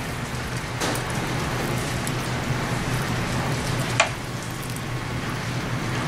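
Steady background hiss with a low hum, and two brief clicks about one second and four seconds in.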